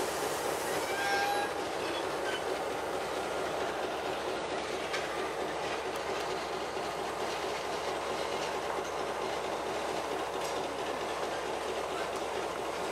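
Narrow-gauge EMD diesel-electric locomotives running slowly past, a steady rumble of engine and wheels on track, with a few faint clicks of wheels crossing rail joints.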